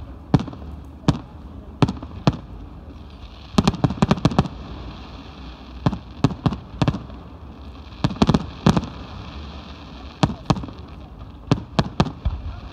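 Fireworks display: aerial shells bursting in a series of sharp bangs at irregular intervals, with quick clusters of reports about four seconds in and again about eight seconds in.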